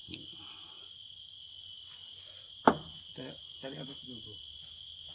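Steady chorus of forest insects, several constant high-pitched tones held throughout. A single sharp knock sounds about two and a half seconds in.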